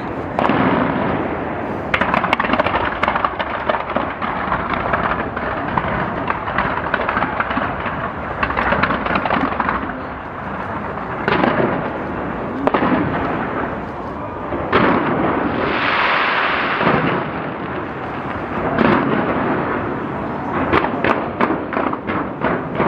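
New Year fireworks display with bangs of bursting shells and continuous crackling. A dense patch of crackle comes about two-thirds of the way through.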